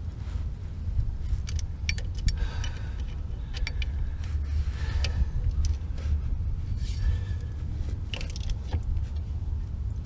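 Irregular metallic clinks and taps of hand tools and driveshaft bolts being worked, over a steady low rumble.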